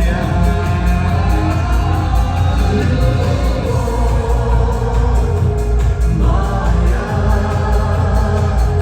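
Caucasian pop song: a man singing a melody over a backing track with a steady beat.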